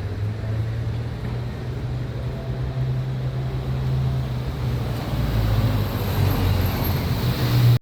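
A motor vehicle's engine running close by with a steady low drone over traffic noise. It grows louder about five seconds in and stops abruptly at the end.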